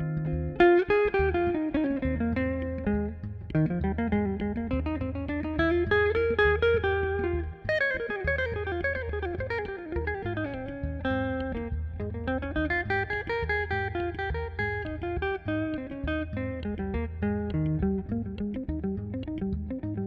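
Live instrumental duo of an Eastman hollow-body archtop electric guitar and an electric bass. Quick runs of notes sweep up and down over held low bass notes.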